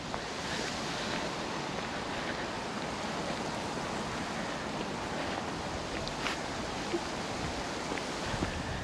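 Steady wind rushing, with a few faint ticks.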